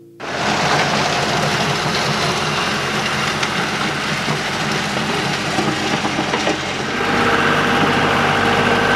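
John Deere diesel utility tractor running steadily as it drags its box scrape blade along a gravel driveway, with gravel scraping and crunching under the blade and tyres. It comes in abruptly and grows a little louder and steadier in tone from about seven seconds in.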